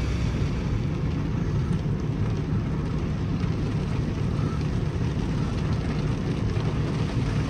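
Heavy rain falling on a car's roof and windshield, heard from inside the cabin as a steady patter over a low hum.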